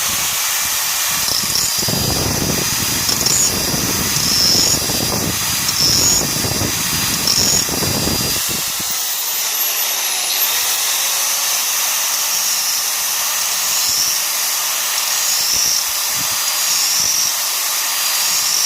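Small 3.5-inch electric angle grinder running, grinding the edge of a steel mower blade clamped in a vice. The grinding is rough and heavy for about the first nine seconds, then runs on as a smoother, steadier whine.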